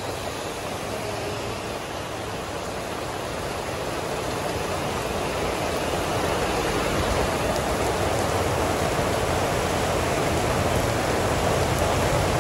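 Heavy rain pouring steadily onto a flooded road, an even hiss that grows slowly louder.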